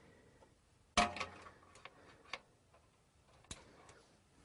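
SATA data cable connectors being plugged into a motherboard's side-mounted SATA ports: one sharp plastic click about a second in, a smaller one near the end, and light ticks of cable handling between.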